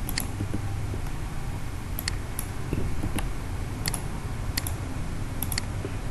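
Computer mouse clicking as beam frames are selected one by one: about a dozen short, sharp clicks at irregular spacing, some in quick pairs, over a low steady hum.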